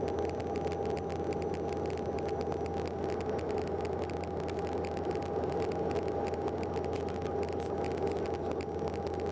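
Steady cabin drone of a Bombardier Dash 8-Q400 turboprop on approach, its six-bladed propellers giving a constant low hum with a steady higher tone above it.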